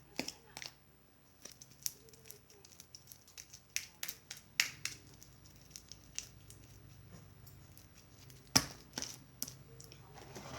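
Hands kneading slime: irregular sharp clicks and snaps of the slime as it is squeezed and pulled, with one louder snap about two-thirds of the way through.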